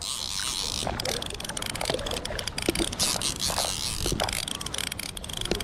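Fly reel clicking rapidly and irregularly as line is cranked in while playing a hooked trout, over a steady hiss of moving river water.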